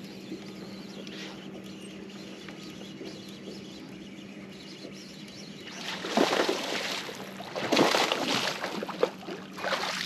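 A hooked bass splashing and thrashing at the surface beside a boat while being reeled in, in loud irregular bursts from about six seconds in. A steady low hum runs underneath.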